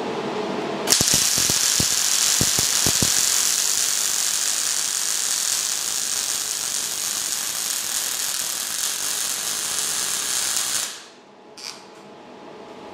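MIG welder arc crackling and hissing steadily for about ten seconds as a plug weld is laid through the hole in a steel plate onto an axle casing. It strikes with a few sharp pops about a second in and cuts off abruptly near the end.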